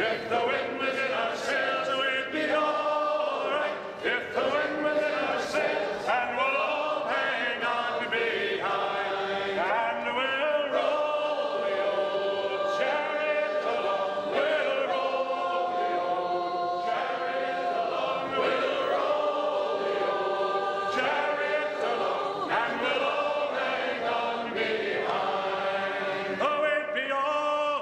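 A group of voices singing together in chorus, holding long notes.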